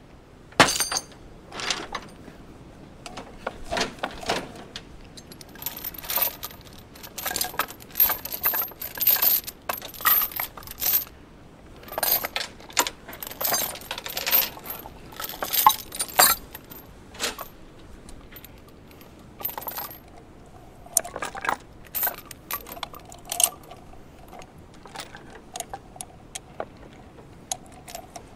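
Steel chains and hooks clinking and jangling as chain hooks are fitted onto a crane scale's hook. The clinks come irregularly and are busiest in the middle.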